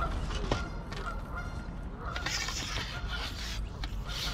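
Geese honking several times, with a brief rustle about two seconds in.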